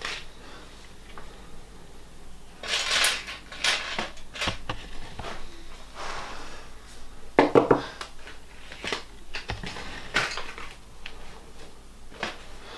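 Knives and tools on a table clinking and clattering as someone rummages through them, in several bouts of handling with short pauses between.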